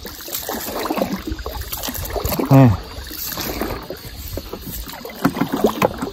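Wooden paddle working a small boat through calm water: irregular dips, splashes and knocks of the shaft. A brief voice-like exclamation about two and a half seconds in is the loudest sound.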